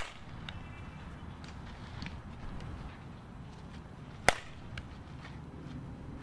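Softball bat hitting a ball with a sharp crack about four seconds in. A fainter hit comes right at the start. Steady low rumble underneath.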